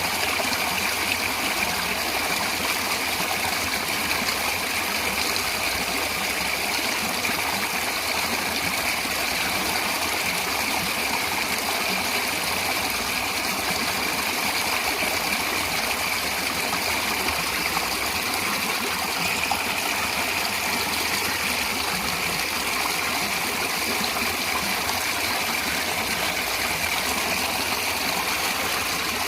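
Natural stream water running steadily: an even, unbroken rushing with no separate splashes or pauses.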